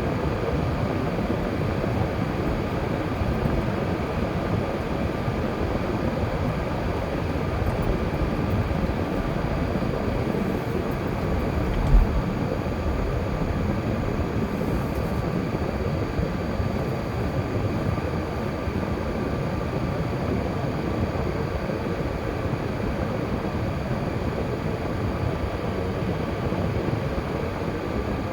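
A car driving: steady road and engine noise with a faint hum, and one short low thump about twelve seconds in.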